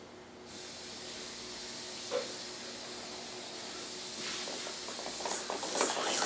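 A steady hiss comes in about half a second in. From about four seconds in, quick clicks and rattles build up and grow louder: a baby jumper seat's frame and toy tray rattling as the baby starts to bounce in it.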